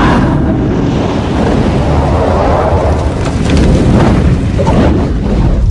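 Loud, continuous rumbling cartoon sound effect like a fiery eruption, with a few sharp crackles about three and five seconds in.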